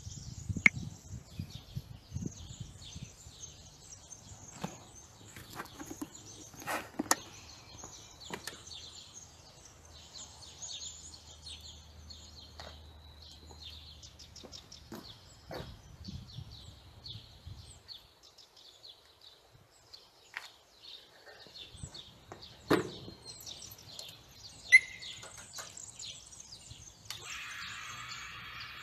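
Birds chirping over a low steady rumble, with scattered clicks and knocks, one louder knock late on, and a short hiss near the end.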